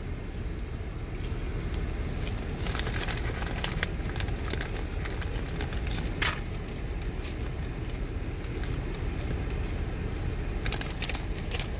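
Scattered crunching and crinkling from eating caramel-coated popcorn and handling its snack bag, with clusters about three seconds in, near the middle and near the end. Under it runs a steady low rumble, like a car idling.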